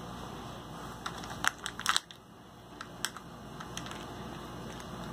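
Small plastic clicks and light crinkling as a Kinder Surprise toy capsule is handled and prised open, with the sharpest clicks between about one and a half and two seconds in.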